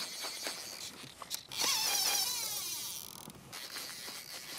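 Fly reel clicking, then about one and a half seconds in a loud buzz lasting over a second as line runs off the reel against its click drag.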